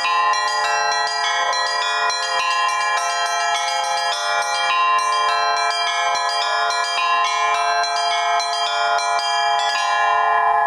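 Russian-style bell ringing: several bells of different pitch struck in a quick, rhythmic pattern with sixteenth-note variations, over a steady lower bell tone. Shortly before the end the striking stops and the bells ring on.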